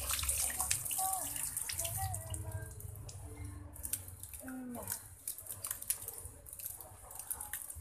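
Wet, sticky mash sliding and dripping out of a plastic jar onto dry fishing-bait powder, a crackling, dripping hiss that thins out toward the end. Faint pitched calls sound in the background early on and again about halfway through.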